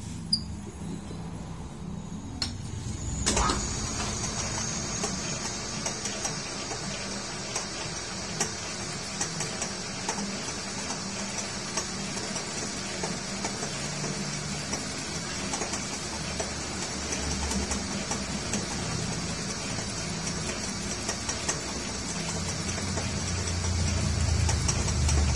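Metal lathe starting about three seconds in, then turning a steel pinion gear while the cutting tool machines its outside diameter, a steady metallic scraping hiss with small ticks of chips, growing louder near the end.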